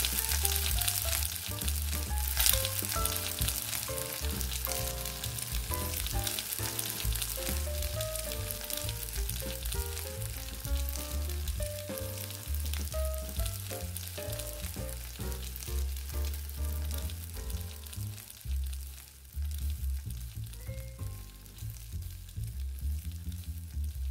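Pancakes sizzling in a nonstick pan as they fry, the hiss thinning toward the end. Under it runs background music with a stepping melody and a steady bass line.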